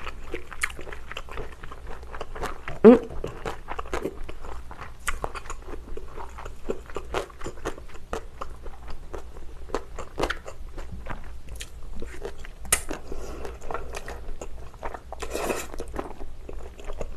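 Close-miked eating of thick, chewy Chinese glass noodles in spicy sauce: wet chewing with many short mouth clicks and smacks, and a longer slurp of noodles near the end. A brief loud rising sound about three seconds in.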